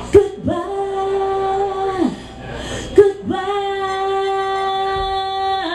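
A woman singing lead through a PA system, holding two long steady notes of about two seconds each. Each note opens with a sharp, loud attack.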